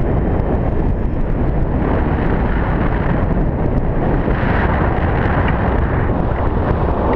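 Wind buffeting the camera microphone during a tandem paraglider flight: a loud, steady, deep rush with no engine note.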